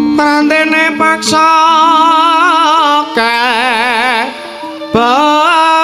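Javanese dalang singing a suluk mood-song in a solo voice, holding long notes with a wide, wavering vibrato over soft gamelan accompaniment. The voice drops away briefly a little past four seconds in, then comes back strongly.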